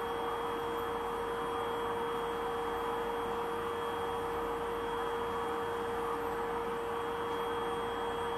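A steady hum made of a constant mid-pitched tone and a fainter high-pitched whine, over low background hiss.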